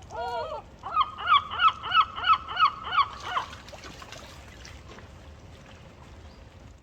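Goose honking: a short call, then a quick run of about eight honks, roughly three a second, which stops about three and a half seconds in.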